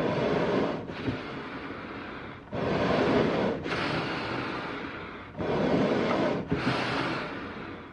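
Slow, heavy, raspy animal breathing, three breaths in a regular cycle about three seconds apart. Each breath is a rough, louder stretch of about a second followed by a softer, longer one.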